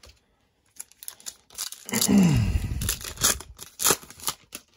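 A trading-card pack's foil wrapper being torn open by hand, crackling and crinkling, loudest a couple of seconds in.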